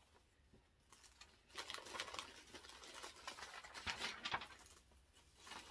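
Faint rustling and crinkling of paper packaging as hands rummage through a box, starting about a second and a half in and crackling on for a few seconds.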